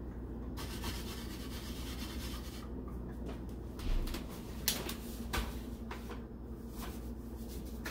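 Paper flour bag rustling and crinkling as it is handled and folded closed, with a few light knocks in the middle.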